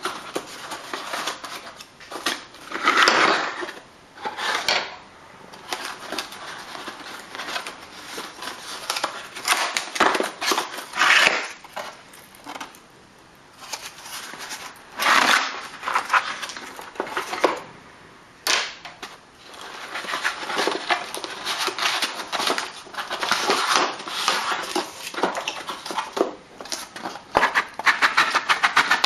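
Packaging being opened and handled while a hood prop strut kit is unboxed: rustling and crinkling, with hard parts clicking and knocking against each other in irregular bursts.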